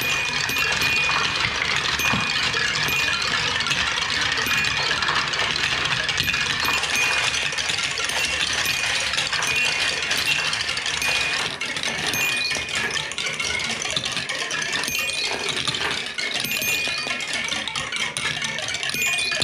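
Glass marbles rolling and clattering through a toy marble run of wooden tracks, clear plastic tubes and plastic funnels: a steady, dense rattle.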